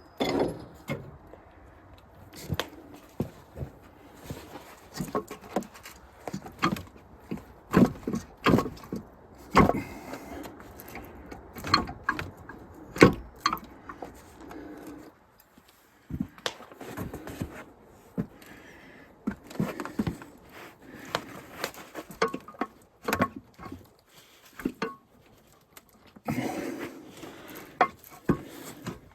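Irregular knocks, clinks and scrapes of tools and parts being handled while the crankshaft of a seized D3400 diesel engine is worked free of the block.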